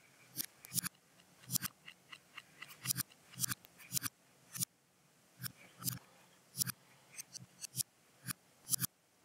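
Computer mouse buttons clicking, irregular and quick, about two or three clicks a second and often in close pairs, as parts are picked, moved and placed on screen.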